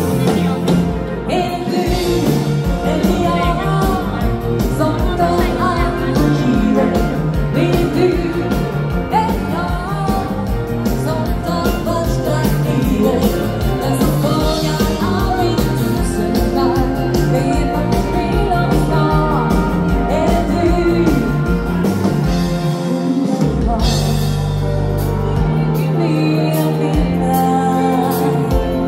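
Live dansband music from a band with a singer, over a steady dance beat, filling a large hall. Near the end the beat drops out, leaving long held notes.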